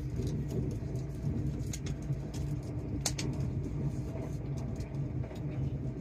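Cabin running noise of a Great Western Railway Class 800 bi-mode train on the move, running on its underfloor diesel engines: a steady low rumble and hum, with scattered light clicks and ticks, one sharper about three seconds in.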